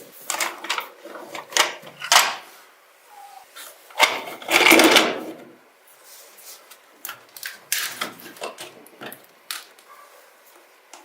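Irregular clatter of knocks, clicks and scrapes, with a longer scraping rush about four seconds in.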